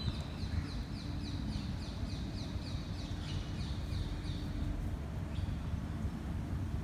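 A bird calling in a rapid series of short, high notes, each falling in pitch, for about four and a half seconds, over a steady low background rumble.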